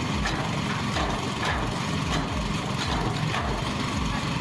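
Forestry harvester's diesel engine running steadily, with a regular series of short sharp ticks, about one to two a second, from the machine at work.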